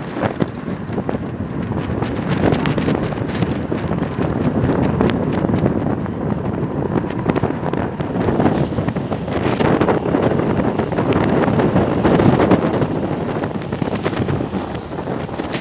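Wind rushing over the microphone of a camera carried by a mountain biker riding a dirt road, with scattered clicks and rattles from the bike over the rough ground.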